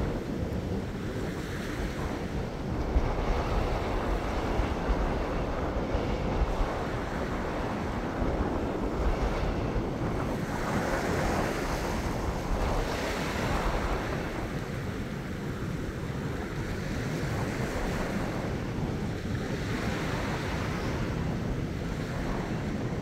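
Small ocean waves washing and lapping over a rocky reef shelf, the wash swelling and fading as each wave comes in. Wind buffets the microphone with a low rumble throughout.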